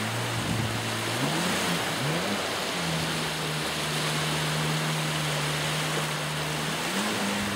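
Jet ski engine running out on the water. Its pitch dips and climbs over the first couple of seconds, then holds steady and rises again near the end, over a steady rushing noise.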